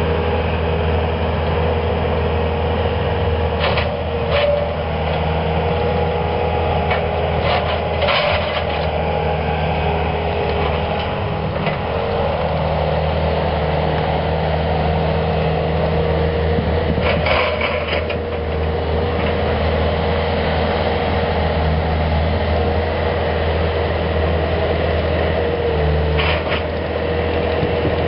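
Bobcat skid-steer loader's engine running steadily, with a steady whine over its low hum and a few sharp knocks now and then.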